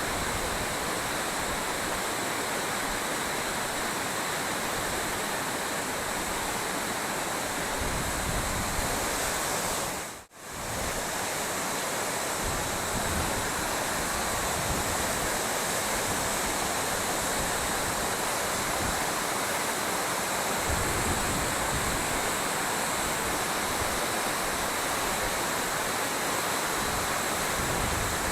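Uchan-Su waterfall's falling water, a steady rushing noise, with a brief cut to silence about ten seconds in.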